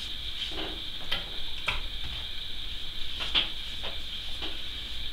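Wide flat brush stroking watercolour across soaked paper: a few short, soft brushing sounds spaced unevenly, over a steady faint room hiss.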